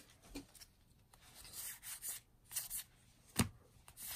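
Magic: The Gathering cards sliding against one another as a freshly opened booster pack is flipped through card by card: a series of faint, soft swishes, with one sharper tap about three and a half seconds in.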